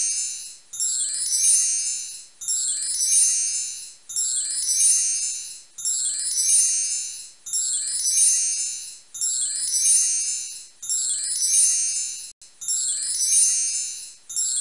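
A short, bright, high-pitched tinkling chime phrase looped over and over, repeating identically about every second and a half to two seconds.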